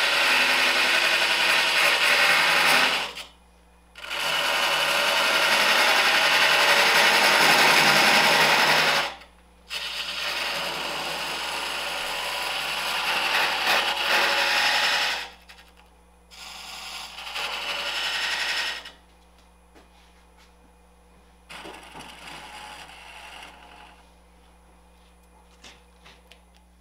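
Wood lathe turning tool cutting a dovetail tenon into the spinning end grain of a branch blank: a loud, rough scraping hiss of shavings being cut, stopping briefly about 3 and 9 seconds in. After about 15 seconds the cuts turn shorter and lighter, leaving only the lathe's faint running hum.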